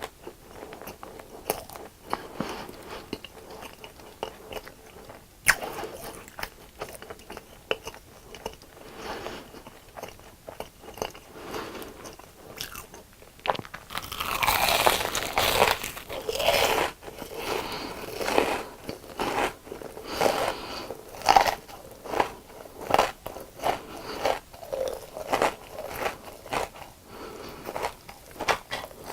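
A person biting and chewing crunchy deep-fried food, a run of crisp crunches that is densest and loudest for a few seconds around the middle.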